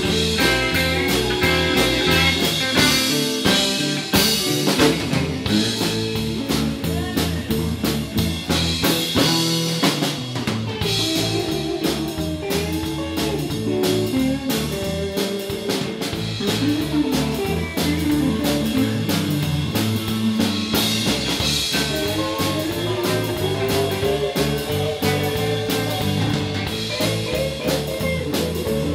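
Live band playing amplified electric guitars and a drum kit, with steady drum hits under the guitars. Several long bent guitar notes rise and fall in the second half.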